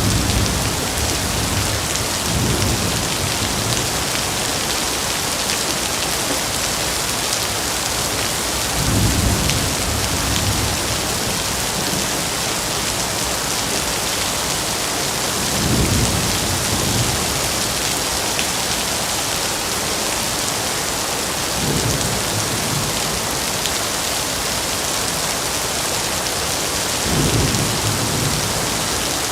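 Steady rain falling in a forest, with a low rumble swelling up briefly every five or six seconds.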